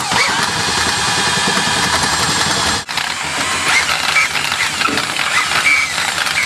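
Cordless drill spinning a drum-type sink snake, its steel cable running and rattling as it is fed into a clogged kitchen drain line. It stops briefly about three seconds in, as the trigger is let off, then runs again.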